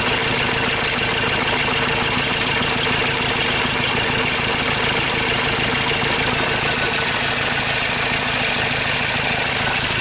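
2013 Ford Ranger T6's diesel engine idling steadily with a rough idle, which the mechanic takes for a misfire.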